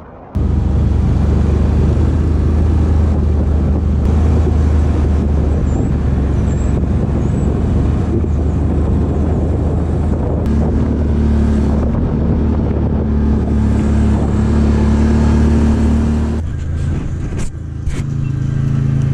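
ATV engine running steadily under way, with wind and road noise, heard from the machine's own mounted camera. About three seconds before the end the sound drops and changes, with a few sharp knocks.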